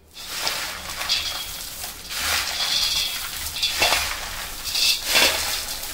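Crisp fried potato-shred chivda with peanuts, curry leaves and fried sago being stirred and tossed together: a rustling, scraping noise that swells and fades several times.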